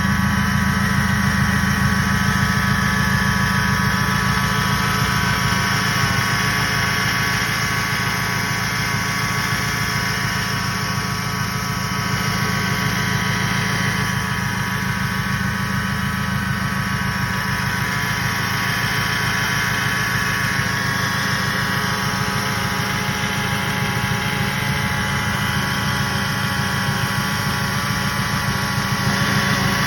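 DHB hydraulic power steering pump growling, with a steady whine over the low rumble of the idling engine: a noisy, faulty pump.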